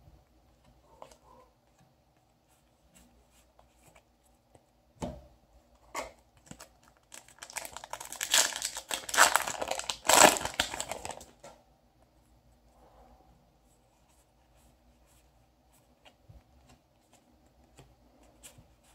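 A foil Yu-Gi-Oh! booster pack being torn open and crinkled for about four seconds in the middle, with a couple of soft knocks just before it. Faint clicks and rustles of trading cards being handled come before and after.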